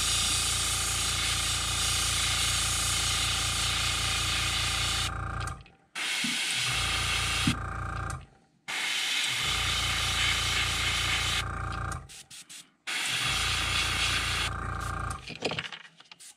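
Airbrush spraying paint, a steady hiss over the hum of a small airbrush compressor, in several stretches of a few seconds each. Each time the spraying stops, the compressor motor cuts off about half a second later.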